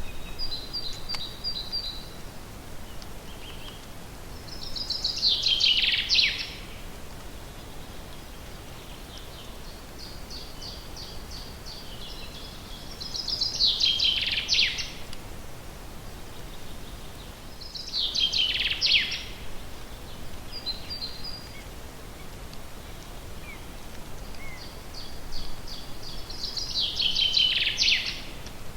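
A songbird singing the same short song over and over, every several seconds: a run of quick, even notes that ends in a louder, falling flourish. Between songs there are a few short high calls over a faint steady background hiss.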